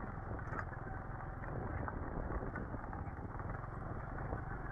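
Motorcycle running at low speed over a rough, potholed dirt-and-gravel track: a steady low engine note under a dense, continuous rattle of small knocks and jolts from the bike bouncing on the bumps.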